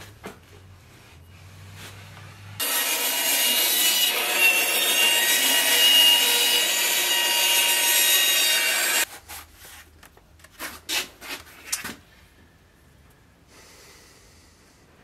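Band saw cutting a thin wooden strip, a steady loud sawing noise that lasts about six seconds and starts and stops abruptly. It is followed by a few light knocks of the wood being handled.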